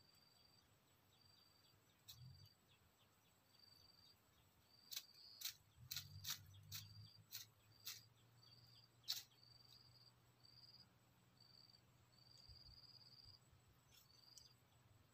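Faint insect chirping: a short high note repeating about once or twice a second. About five seconds in comes a run of about eight sharp clicks over four seconds.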